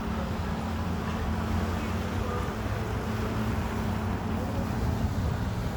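Steady wind buffeting the microphone of a sailing catamaran under way, a continuous low rush with no pauses.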